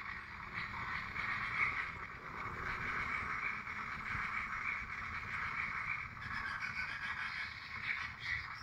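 Swiftlet calls, many overlapping into a steady twittering chatter, over a low rumble.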